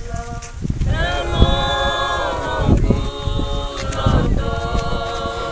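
A group of voices singing together without accompaniment, holding long notes that start about a second in. Wind rumbles on the microphone underneath.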